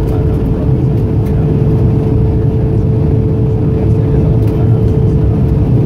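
Embraer E175's GE CF34-8E turbofan engines at takeoff thrust, heard inside the cabin over the wing: a loud, steady, low noise with a steady hum through it, as the jet rotates and lifts off. The hum fades near the end.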